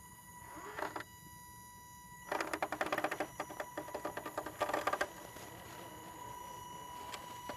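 Axial SCX10 RC crawler's electric motor and geared drivetrain working as the truck climbs a sandy bank. A short burst comes about a second in, then a fast mechanical clatter lasts about three seconds from about two seconds in.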